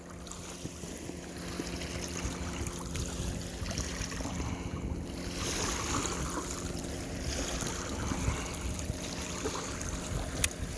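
Small waves lapping at a lake shore, with a steady hum from a distant boat motor and some wind on the microphone. A short click near the end.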